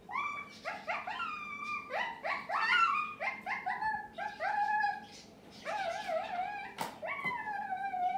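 A dog whining and yelping: a rapid run of short high cries that rise and then fall in pitch, with a single sharp click about seven seconds in.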